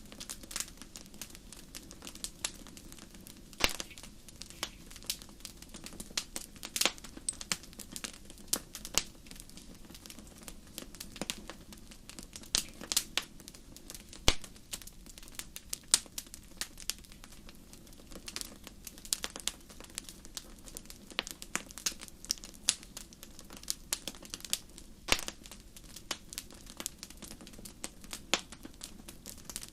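Wood fire crackling in a fireplace: irregular sharp pops and snaps, several a second, over a soft steady low rush.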